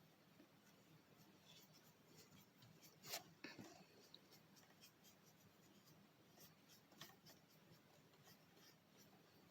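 Faint, scratchy strokes of a paintbrush working paint onto a paper mache clay bird, with a louder brief scrape about three seconds in and another at about seven seconds.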